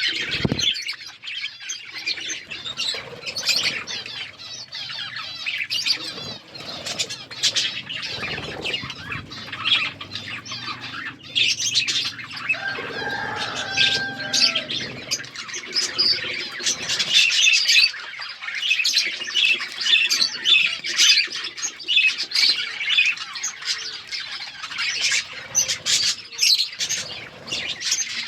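A flock of budgerigars chattering without pause, a dense mix of high chirps, warbles and squawks.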